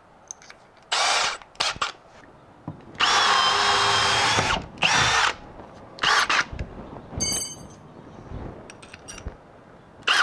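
Cordless drill spinning a quarter-inch Bosch Daredevil spade bit into a wooden stud. It starts with a couple of short trigger bursts, then runs steadily for about two seconds, then gives several more short bursts.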